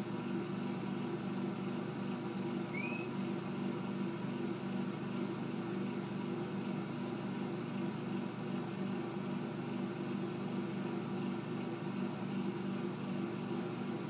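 Steady mechanical hum of a running fan or small motor. About three seconds in comes a single brief, rising high-pitched parrot chirp.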